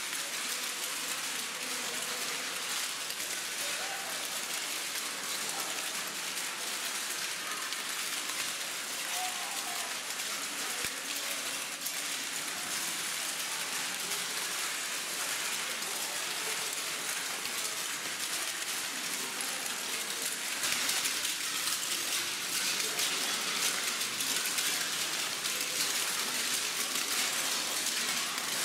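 Many footsteps crunching and crackling over a floor of cracked white tiles, a dense steady crackle that grows louder about two-thirds of the way through. Voices murmur faintly underneath.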